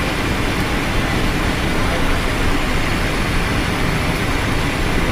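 Steady rush of airflow and jet engine noise inside the cockpit of a Cessna Citation XLS business jet in flight.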